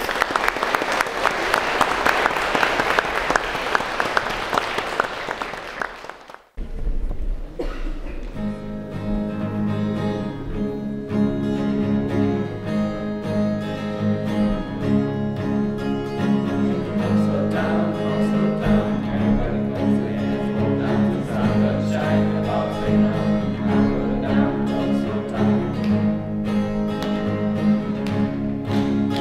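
Audience applauding for about six seconds, which breaks off abruptly; instrumental music with guitar and bowed strings follows and carries on steadily.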